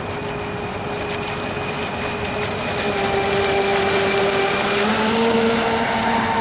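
Fast radio-controlled speedboats running flat out, their motors giving a steady tone that gets louder and shifts higher about five seconds in as a boat runs close past. Hiss from the hull and spray rides along with it.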